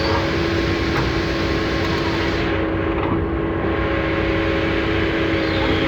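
Heavy-equipment diesel engine running steadily at an even speed.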